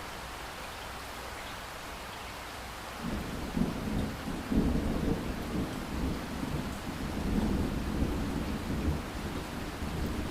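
Pouring rain hissing steadily. About three seconds in, a low rolling rumble of thunder sets in and carries on with uneven swells.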